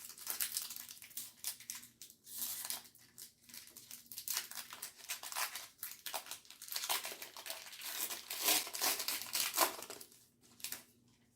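Foil Pokémon booster pack wrapper crinkling and rustling as it is handled and opened: a run of dry, irregular crackles that dies away about ten seconds in.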